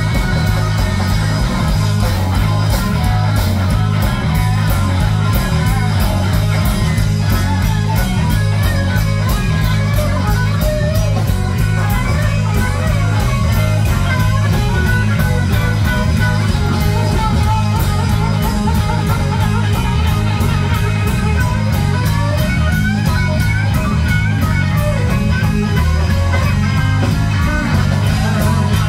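Live electric blues-rock band playing loudly, with electric guitar lead lines over a heavy bass and a steady beat.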